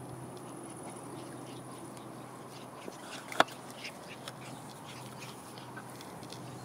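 A puppy gives one short, sharp yelp about three and a half seconds in. Under it are a faint steady background and scattered small ticks.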